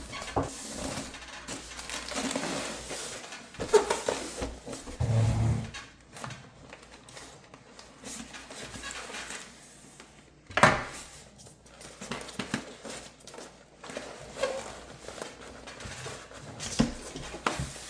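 A plastic toy RC excavator and its packaging being handled as it is taken out: rustling with scattered knocks and clatters, the loudest a sharp knock about ten and a half seconds in.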